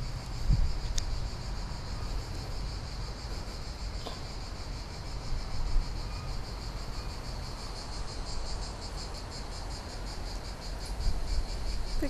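Insects chirring steadily, a continuous high, finely pulsing buzz, over a low rumble, with a few soft knocks near the start and about four seconds in.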